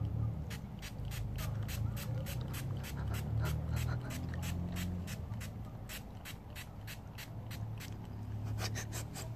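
Small hand-pump spray bottle of plain water misting in quick short squirts, about three a second, with a faster run of squirts near the end, over a low steady hum.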